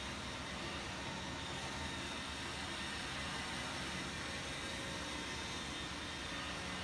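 Steady whir of two electric pedestal fans and a robot vacuum running, with a faint high whine in it.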